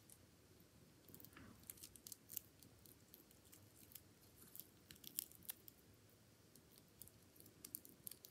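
Faint, irregular crunching and crackling clicks of an Indian giant forest scorpion (Gigantometrus swammerdami) chewing a black cricket's exoskeleton with its chelicerae. The clicks come in short clusters about a second and a half in, around five seconds in, and near the end.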